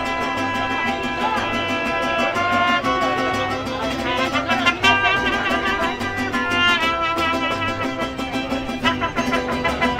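Mariachi band playing, trumpets holding long melody notes over strummed guitars with a steady beat.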